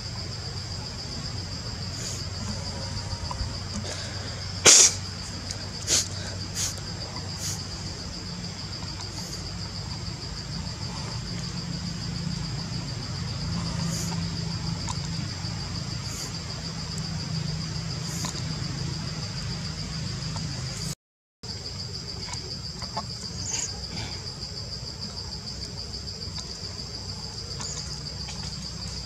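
Insects chirring in a steady, high-pitched, pulsing drone, with a few sharp clicks or snaps about five to seven seconds in, the first being the loudest. The drone breaks off for an instant about two-thirds of the way through.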